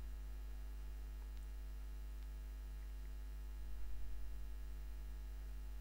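Steady low electrical mains hum with evenly spaced overtones, and a few faint handling sounds about four seconds in as the toy ball is turned in the hands.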